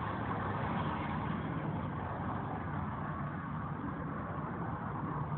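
Steady low rumbling background noise with a faint even hum, like a running engine or traffic.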